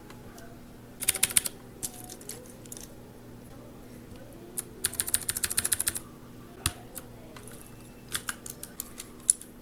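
Typing on a mechanical keyboard: three quick runs of key clicks with short pauses between them.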